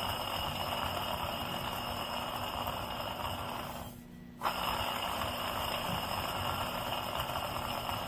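Car air-conditioning compressor bearing, internally damaged, making a steady grinding, whirring noise with the compressor running. It is the noise that appears when the car's air conditioning is switched on. The noise breaks off for about half a second around four seconds in, then carries on.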